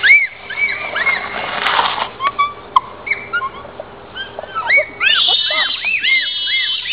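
Bonobos calling: high-pitched, arching hoots repeated in quick series, several animals overlapping into a denser chorus about five seconds in.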